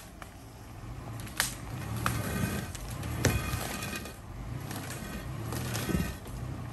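A vehicle engine running while a boulder of nearly a tonne is dragged along the road, with scraping and several sharp knocks of rock on the surface.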